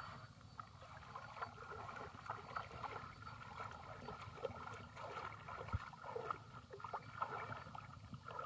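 Small irregular splashes and sloshing of shallow muddy water as hands grope inside bamboo polo fish traps pressed into the water, over a low steady rumble.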